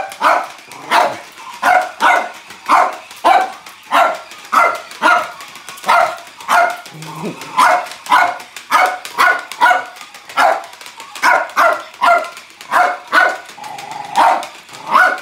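Small dog barking steadily and repeatedly, nearly two barks a second, at a flashing light-up ball toy.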